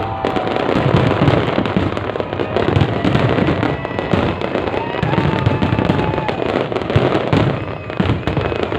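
A big fireworks display going off continuously: dense, overlapping bangs and crackling with no gaps, with a few held whistling tones over it.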